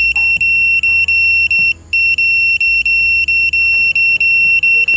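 Handheld satellite finder meter beeping: a high-pitched electronic tone pulses rapidly and evenly, with one brief break a little under two seconds in. The tone is the meter's signal-lock alert, sounding while the dish is locked on a satellite transponder.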